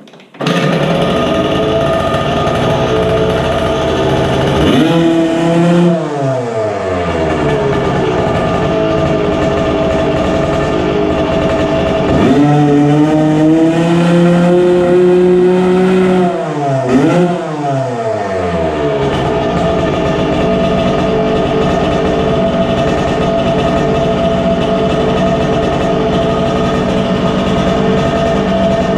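Two-stroke dirt bike engine starting about half a second in and idling, revved once about five seconds in, held at higher revs for a few seconds around the middle, blipped again, then settling back to idle. The throttle is being tested for a carburettor bog, and a slight bog may still be there.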